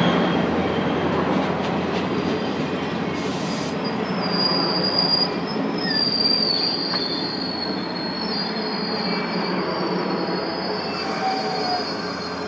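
Caltrain commuter train passing through the station, its steel wheels rumbling on the rails. High-pitched wheel squeal comes in about a third of the way through and fades out a few seconds later.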